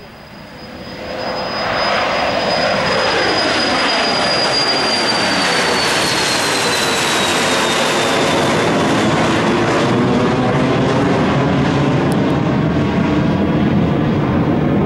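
Embraer Phenom 300 business jet's twin Pratt & Whitney Canada PW535E turbofans at takeoff power. The noise builds over the first two seconds into a loud, steady jet roar, and its high whine falls in pitch as the jet passes.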